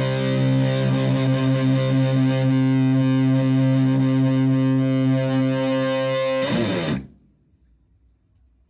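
Electric guitar (Stratocaster) through a Tone Bender MKI fuzz pedal and a Twin Reverb-style amp, holding one sustained, fuzz-distorted tone. The tone is cut off about six and a half seconds in, leaving only faint amp noise.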